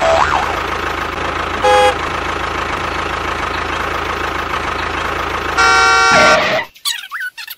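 Tractor engine running steadily with a low chugging, and a horn giving a short toot about two seconds in and a longer honk near the end. Then the engine sound cuts off abruptly.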